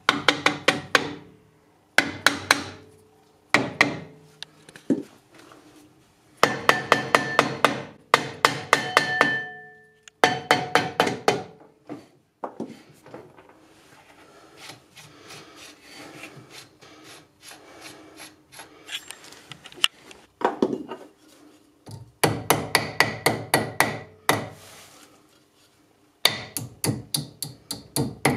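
Quick runs of hammer taps on a VW Beetle rear drum brake assembly, about four strikes a second, in several bursts with quieter pauses between.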